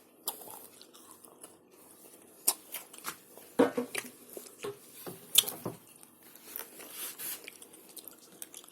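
A candy being unwrapped and eaten: the wrapper crinkles and tears, with crunching and chewing, in scattered short crackles and clicks.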